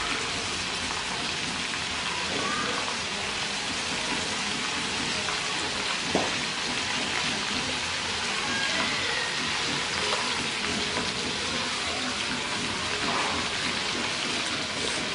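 Duck pieces sizzling steadily as they deep-fry in hot oil in a metal wok, with a single sharp click about six seconds in.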